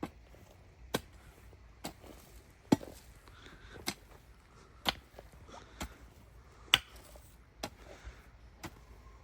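A hand tool striking repeatedly with sharp chopping blows, about one a second in a steady rhythm, some blows louder than others.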